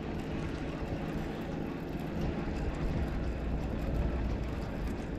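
Steady low rumble of wind on the microphone, with a baitcasting reel being cranked in.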